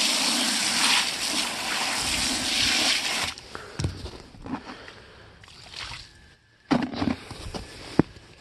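Water from a pistol-grip hose spray nozzle hitting the inside of a rubber livestock water bucket for about three seconds, rinsing it out. The spray then stops, and a few splashes and sharp knocks follow, one louder knock near the end.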